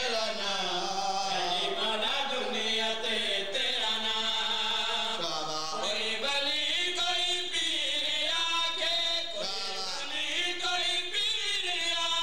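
A group of men chanting together, one voice leading into a microphone and the others joining: a mourning chant at a majlis (aza).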